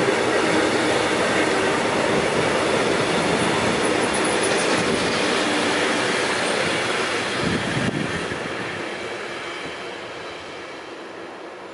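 Intermodal freight train of pocket wagons carrying truck trailers rolling past on the rails, a steady loud wheel-on-rail rumble. After the last wagon has gone, a single knock comes about eight seconds in and the sound fades away as the train recedes.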